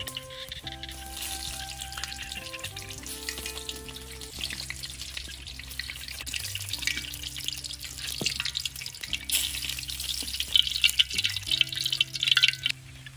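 Fish frying in hot oil in a large steel wok, sizzling and crackling, with a ladle working in the pan as the fried pieces are lifted out. The crackling grows louder and spikier in the second half and cuts off suddenly just before the end.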